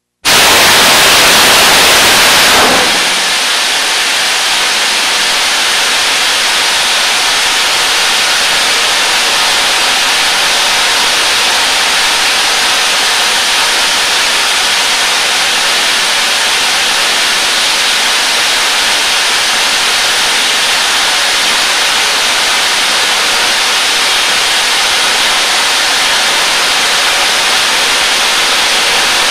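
JAGM dual-thrust solid rocket motor firing on a static test stand: it ignites suddenly into a loud, rushing hiss, louder for the first two and a half seconds of the boost phase, then settles to a slightly quieter steady rush as it burns on in the sustain phase.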